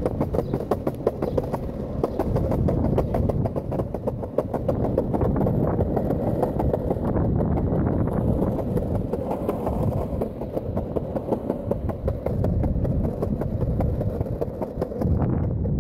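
Longboard wheels rolling over a concrete sidewalk: a steady rumble with a rapid clatter of small ticks.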